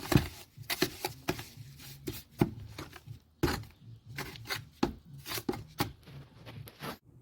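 Irregular short scrapes and taps of a trowel working mortar into brick joints.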